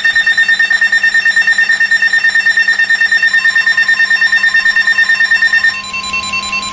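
Emergency Alert System alert tones: a loud, high electronic beep pulsing rapidly, about seven or eight times a second. A little before the end it switches to a steady, lower alarm tone.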